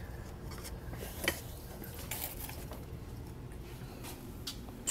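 Oil filter housing cap being unscrewed by hand and lifted out of the engine: scattered light clicks and knocks of plastic against metal, the sharpest about a second in, over a low steady rumble.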